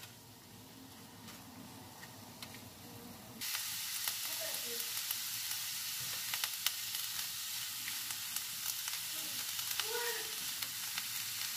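Julienned vegetables (carrot, cabbage, onion and capsicum) stir-frying in oil in a steel frying pan, tossed with a silicone spatula. The sizzle is faint at first and turns suddenly loud about three seconds in, with scattered clicks of the spatula against the pan.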